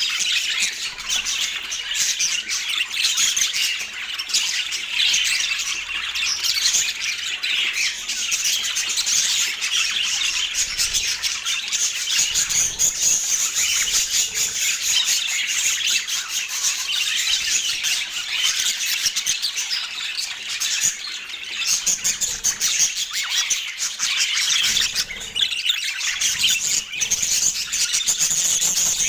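Budgerigars chattering and warbling nonstop, a dense stream of high chirps and squawks.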